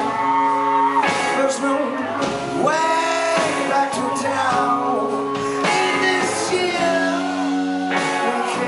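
Rock band playing live, a male lead voice singing over electric bass and drums.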